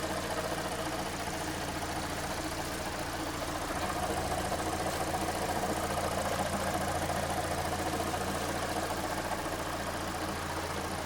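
Kia Sportage's G4NA engine idling steadily, its sound covered by a drone from the manual gearbox that swells slightly in the middle: the noise the mechanics put down to worn input-shaft bearings.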